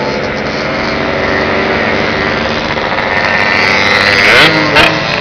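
Yamaha RX-King two-stroke motorcycle engines running at riding speed, a steady drone, with one engine revving up briefly near the end.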